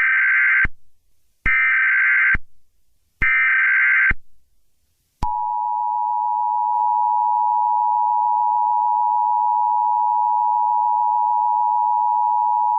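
Emergency Alert System header tones: three bursts of SAME digital data chirps, each under a second with about a second's gap. About five seconds in, the steady two-tone attention signal begins and carries on.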